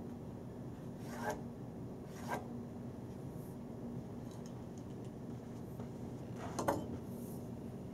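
Three short scraping rubs from hands and tools handling the billiard cloth on the table bed, about a second, two seconds and six and a half seconds in, the last the loudest, over a steady low hum.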